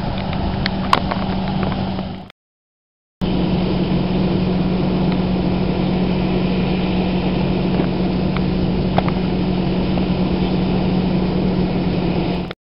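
Fire apparatus engine running steadily at idle, a constant droning hum with no revving. The sound drops out completely for about a second near the start and cuts off just before the end.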